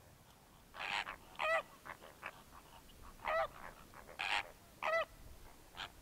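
Greater flamingos honking: a run of goose-like calls, about five loud ones with fainter ones in between, each call wavering in pitch.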